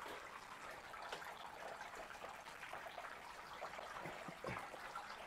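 Water trickling steadily into a concrete catfish fry tank from its inlet pipe. This is the constant flow kept running to stop the tank water from fouling. A soft knock or two comes a little after four seconds in.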